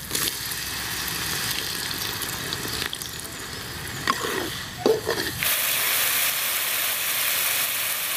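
Water poured into hot spice masala in an aluminium kadai, hissing as it hits, then a metal spatula stirring and scraping the pan with a few short squeaks. From about five and a half seconds in, a steady loud sizzle as the masala fries and bubbles in the oil and water.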